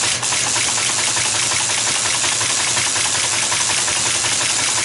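Teletype ASR 33 printing a fast, even run of the same character, a rapid mechanical clatter over the steady hum of its running motor. It prints @ where A was sent, because the print head's type cylinder is rotated one position off.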